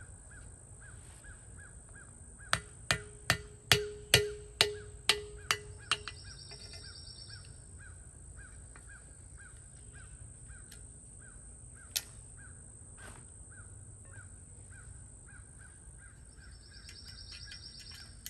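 A steel hammer strikes a punch held against the cast bearing housing of a VW Beetle rear trailing arm, working loose the packed bearing parts. There is a quick run of about ten ringing metal blows, roughly three a second, then a single sharper tap several seconds later.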